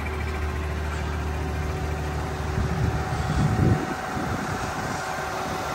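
Tractor diesel engine idling steadily with a low hum, which drops away about two-thirds of the way in.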